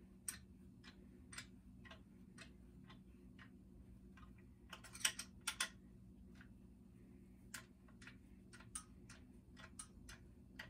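Hand ratchet clicking in short, irregular runs as a bolt is backed out of an outboard motor's lower-unit housing, with a faint steady hum underneath.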